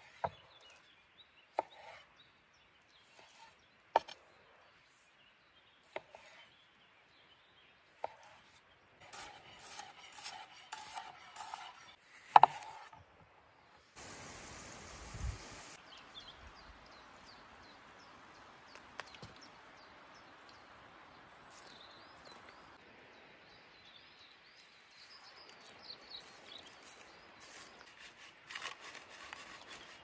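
Kitchen knife cutting cherry tomatoes on a wooden board, a sharp chop every couple of seconds, then quicker clatter and one loud knock. After that, a steady sizzle of food frying in a cast-iron pan over a wood fire.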